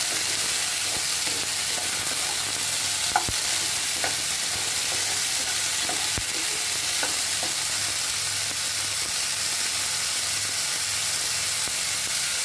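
Vegetables and soaked field beans sizzling as they fry in hot oil in a pan, with a spoon stirring against the pan and one sharper knock about three seconds in.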